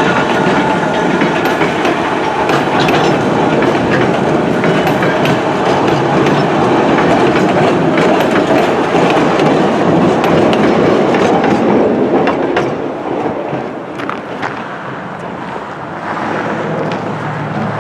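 Narrow-gauge passenger train running, its wheels clacking over the rail joints. The sound drops somewhat about twelve seconds in.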